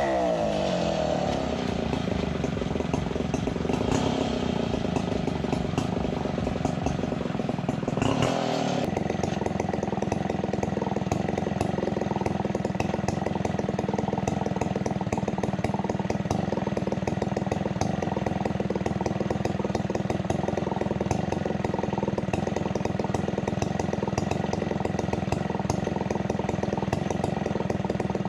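Two-stroke chainsaw engine settling from high revs and running steadily at low speed, with a brief change in its note about eight seconds in.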